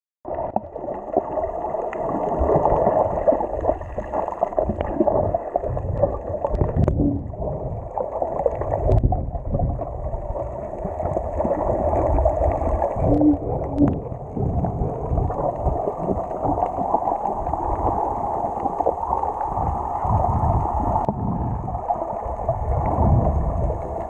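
Muffled underwater noise picked up by a camera moving through the water, a steady low rushing and sloshing. A few faint clicks are heard.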